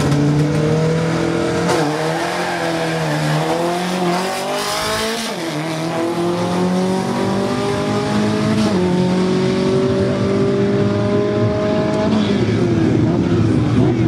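A VW Gol drag car's engine at full throttle on a drag-strip run. It revs high on the line, then pulls hard, its pitch climbing in each gear with sudden drops at the gear changes. Near the end the pitch falls steadily as the car lifts off after the finish.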